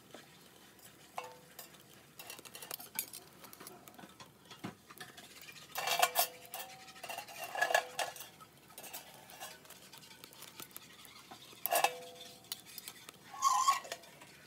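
Metal clinks and scrapes of a steel lifter against the wire racks of a small steel camping oven and a stainless steel plate, with several louder clanks that ring briefly.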